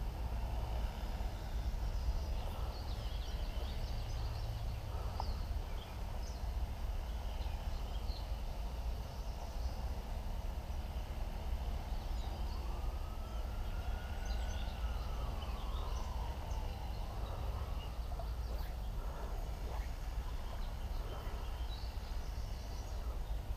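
Outdoor ambience: a steady low rumble with scattered bird chirps, and one long rising-then-falling call about halfway through.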